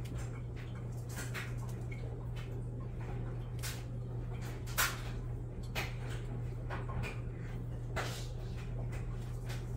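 A few light taps and clicks as pinches of crushed candy cane are pressed onto cookie dough balls on a metal baking sheet, over a steady low hum.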